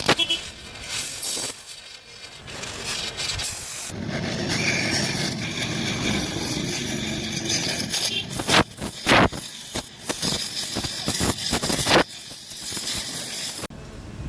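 Oxy-acetylene welding torch hissing steadily through the middle, with scraping and several sharp knocks around it.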